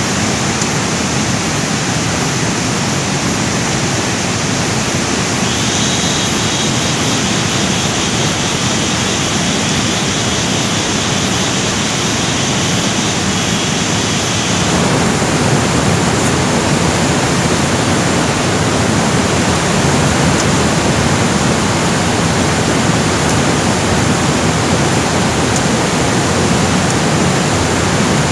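Steady rushing noise throughout. A faint high whine joins it about five seconds in and stops about halfway, after which the rushing becomes a little louder and fuller.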